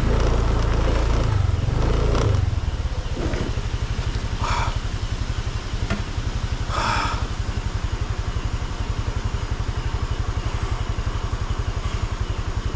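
Motorcycle engine running steadily at low revs with even firing pulses, while riding over a dirt track. There is rougher, louder noise for the first two seconds or so, and two short hissy sounds about halfway through.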